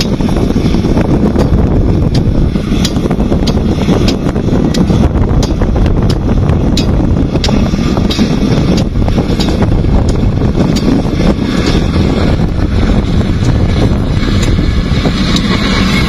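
LiuGong wheel loader's diesel engine running steadily under load while its bucket pushes a pile of dirt, with wind buffeting the microphone and scattered sharp crackles.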